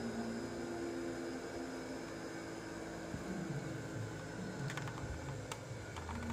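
Phone being picked up and turned: a few light clicks and knocks late on, over a faint steady hum.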